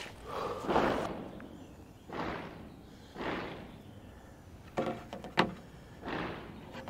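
Handling noise at a shooting bench: soft rustling swishes as a person moves and settles behind a rifle, and three sharp knocks or clicks about five seconds in as the rifle is handled.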